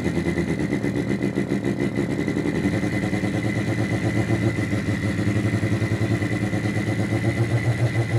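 Artificial engine sound from a function generator's sweep output played through a small amplifier and speaker: a fast, even throbbing like a running motor, with a thin steady whistle above it. About two and a half seconds in, the throb gets deeper and stronger.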